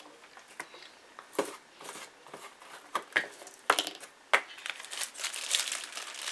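Clear plastic wrapping crinkling as it is handled. Scattered sharp crackles come first, then denser, continuous crinkling over the last second and a half.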